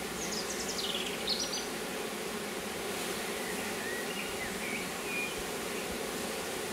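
Honeybee colony buzzing steadily around an opened hive. A quick series of short, falling high chirps comes about half a second in, and a few fainter high notes near four to five seconds.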